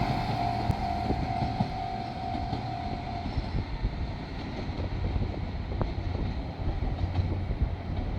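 Diesel railcar running past a level crossing with a steady low engine rumble and a few sharp wheel clicks. The crossing alarm's repeating tone stops about three seconds in.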